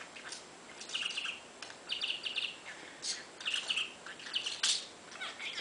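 Pet budgerigar chirping and chattering in several short bursts of quick, high chirps.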